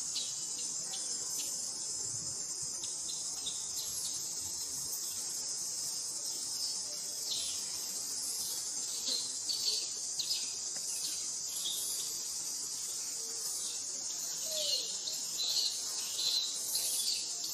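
Steady high-pitched insect chorus, with a few short chirps over it, most of them in the second half.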